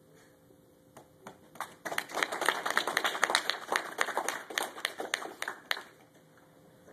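A small group clapping: a few scattered claps, then about four seconds of applause that thins out and stops.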